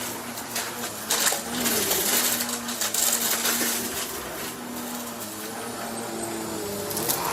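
Upright vacuum cleaner running while pushed quickly back and forth, its motor hum dipping in pitch now and then, with repeated bursts of rattling as debris is picked up.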